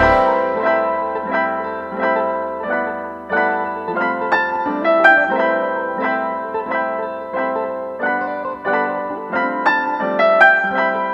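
Background music: a piano playing a slow, gentle melody of single ringing notes at an even pace.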